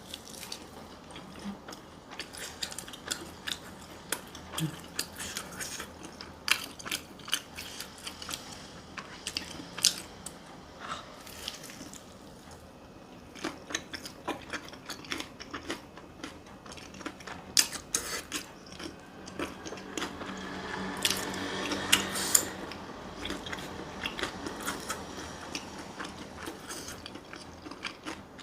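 Close-miked eating: chewing and crunching food, with many sharp wet mouth clicks, busiest a little past the middle.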